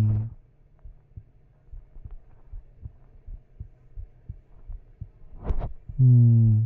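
Low steady hum with faint soft thumps. A short noisy rush comes about five and a half seconds in, then a man's drawn-out hesitant 'umm' near the end.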